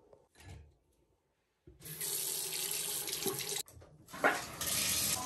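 Kitchen tap running water into the sink. The flow starts about a second and a half in and cuts off suddenly two seconds later. Then comes a knock, and the water runs again.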